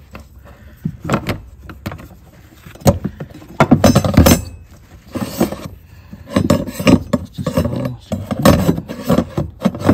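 Hands working the plastic fuel pump module seated in a BMW F10's fuel tank opening: irregular clicks, knocks, clinks and rustling, loudest a few seconds in and again in a run of knocks in the second half.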